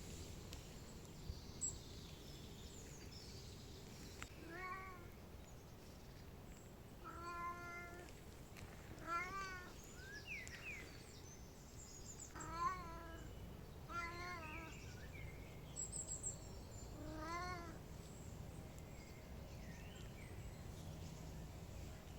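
Domestic cat meowing six times, a few seconds apart. Each meow is a short call that rises and then falls in pitch.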